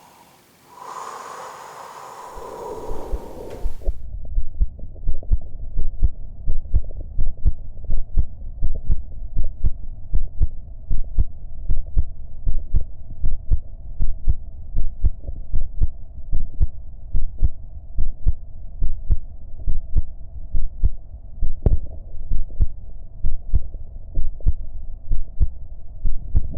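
A person's own heartbeat recorded by microphone: a steady, regular low thumping, a little over one beat a second. A brief noisy rustle or breath comes in the first few seconds before the beat settles in.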